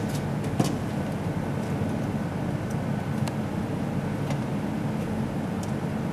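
Steady low rumble of background noise, like distant road traffic, with a few faint clicks as the wire connectors inside an opened electric rice cooker are handled.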